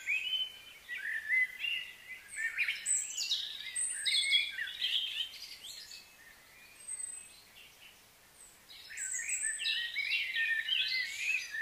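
Wild birds singing and chirping in a busy, overlapping chorus of short sliding notes. It thins out for a couple of seconds in the middle and picks up again near the end.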